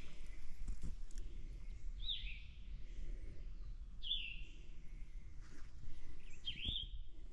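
A bird calling three times, a short high slurred note about every two seconds, over a low steady outdoor rumble.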